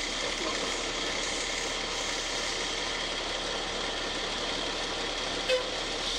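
Fire truck's engine idling steadily, heard from inside the cab, with a single short blip about five and a half seconds in.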